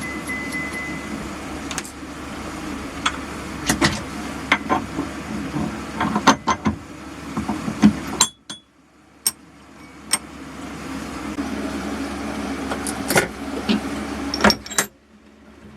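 Small milling machine's electric motor running with a steady hum, with sharp metallic clicks and knocks from the workpiece and tooling being handled. The sound drops out abruptly about eight seconds in, then the hum comes back and gradually grows louder before dropping away again near the end.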